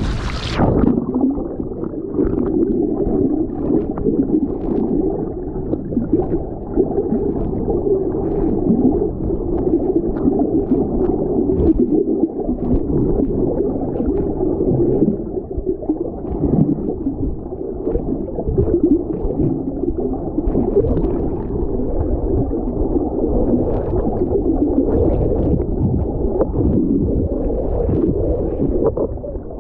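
Muffled underwater sound of sea water around a submerged camera: a steady gurgling and sloshing with faint scattered crackles. The brighter open-air sound cuts off about half a second in.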